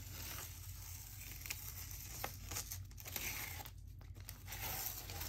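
Masking tape being peeled off the edge of watercolor paper: a long, steady ripping hiss with a few small crackles as the tape lifts.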